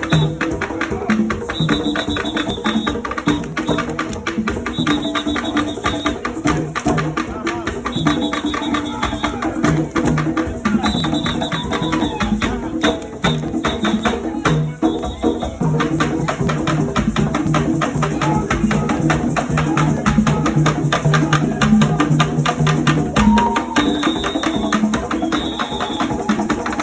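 Music with a steady, busy percussion beat of drums and shaker-like rattles under repeating melodic phrases.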